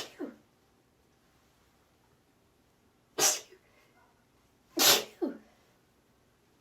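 A woman sneezing: the tail of one sneeze at the very start, then a pair of sneezes about a second and a half apart a little past halfway, each ending in a short falling after-sound.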